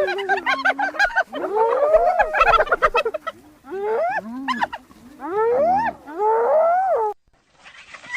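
Hyena calls, as a sound effect for the cave hyena: a run of loud, wavering calls that rise and fall in pitch, in several groups with short gaps, stopping about seven seconds in. A quicker, choppier set of calls starts near the end.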